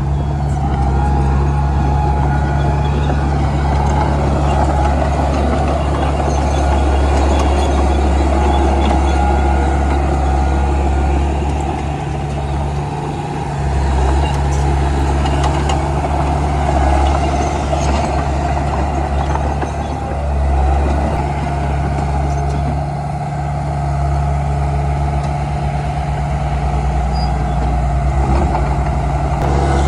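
Komatsu D31P bulldozer's diesel engine running steadily with a deep drone while working, its level easing briefly about 13 seconds in and again around 22 seconds.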